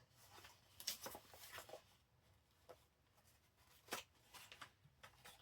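Near silence with a few faint paper rustles and soft taps as a handmade brown packaging-paper bag is handled.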